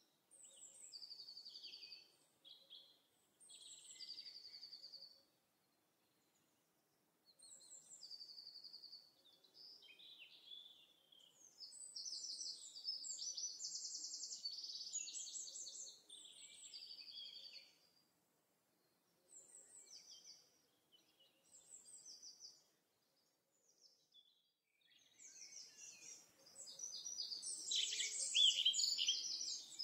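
Songbirds singing: short phrases of high chirps and rapid trills a second or two long, broken by brief pauses, growing busier and louder near the end.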